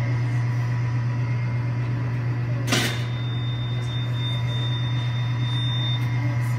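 Steady low electrical hum, with one sharp click a little under three seconds in.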